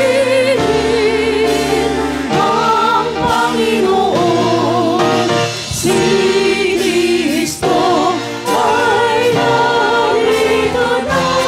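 Small mixed choir of men and women singing a gospel praise song in harmony into handheld microphones, amplified.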